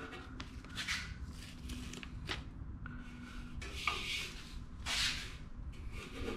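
Painter's tape being handled and pressed by hand onto a motorcycle fender: a few short rustles and rubs, with one light click a little over two seconds in. A faint steady hum runs underneath.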